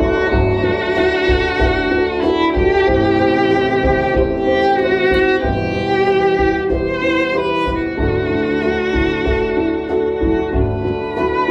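Solo violin playing a slow melody with vibrato on long held notes, over a backing track of low sustained notes.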